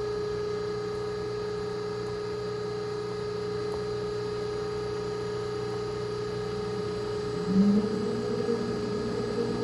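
Steady hum of a hydraulic box and pan brake's pump motor running. About three-quarters of the way through, a brief louder whir rises over it as the back gauge is jogged.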